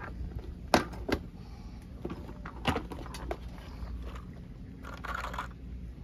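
Small plastic and metal parts clicking and clattering as a hand handles a clear plastic organizer box of crimp connectors: a few sharp clicks, then a short rustle of rummaging near the end, over a low steady rumble.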